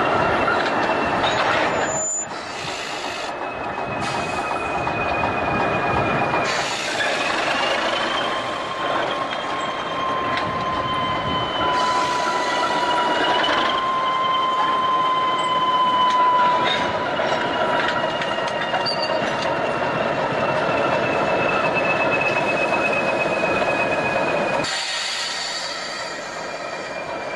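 Stockton Terminal & Eastern diesel switcher and covered hopper cars rolling slowly, with long steady wheel-flange squeals that slide slightly in pitch over the train's running rumble.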